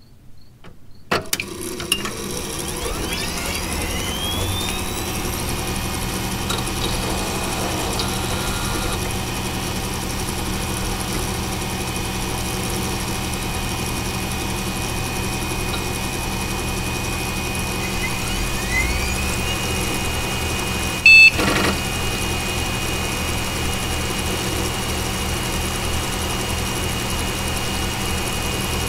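Desktop PC powering on: a few clicks from the power button, then the CPU, case and power-supply fans spin up into a steady whir with fixed tones, and twice a rising whine climbs in pitch. About three-quarters of the way through, the PC speaker gives one short, loud, high beep, the POST beep that signals the computer passed its power-on self-test.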